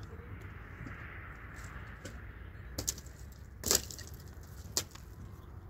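Three sharp cracks about a second apart, the middle one loudest, over a steady low hiss.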